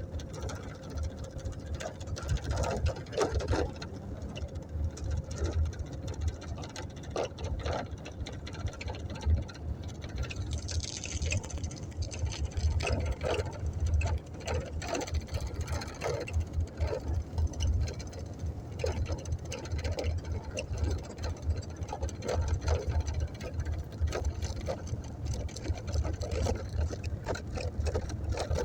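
Steady low engine drone of a motorboat, with faint scattered voices.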